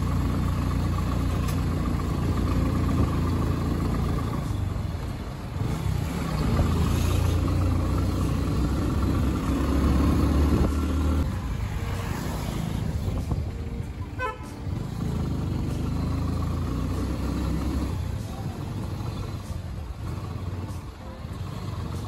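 A road vehicle's engine running steadily while driving, with a horn sounding now and then.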